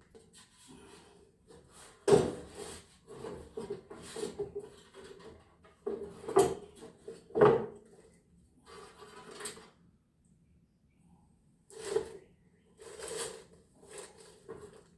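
Work noise from parts being handled: an irregular run of knocks, clunks and scrapes, with the sharpest knocks about two seconds in and again around six and seven and a half seconds.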